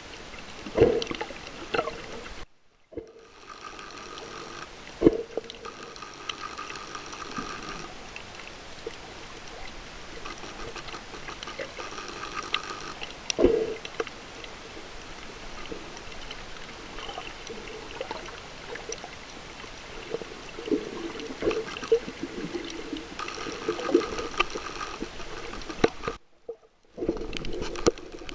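Underwater sound from a submerged camera: a steady wash of water with scattered bubbly pops and knocks. A faint pitched whine comes and goes several times, and the sound drops out twice briefly.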